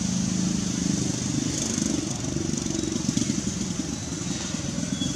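A small engine running steadily, a low even rumble with a fine rapid pulse.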